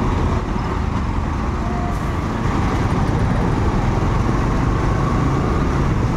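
Steady ride noise from a two-wheeler moving in city traffic: its engine running under a dense low rumble of road and traffic noise.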